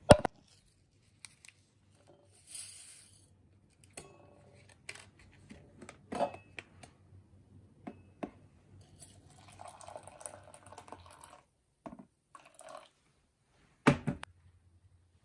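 Scattered clicks, knocks and brief clatters of kitchen handling, such as dishes and utensils, with a short hiss and a faint low hum. The loudest knocks come right at the start and about a second before the end.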